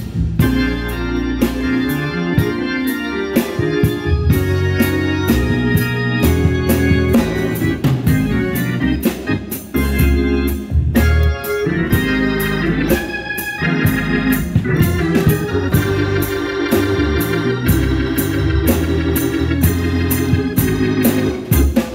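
Organ music played live: full chords over moving bass notes, with many sharp, quick attacks throughout.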